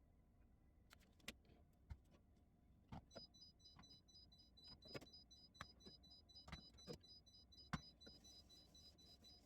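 Near silence with scattered faint clicks and knocks. From about three seconds in, a faint high tone pulses steadily.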